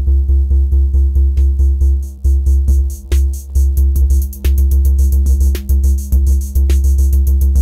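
Eurorack modular synthesizer playing a techno loop: a heavy sustained bass and steady synth tones under a fast drum-machine pattern of clicky hits. The bass drops out briefly several times.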